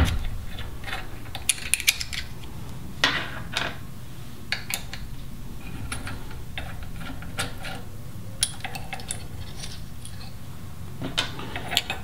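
Small metallic clicks and taps of an Allen key and screws being worked on the aluminium housing of a B&M Ripper shifter, as the cover screws are undone by hand. A low hum runs steadily underneath.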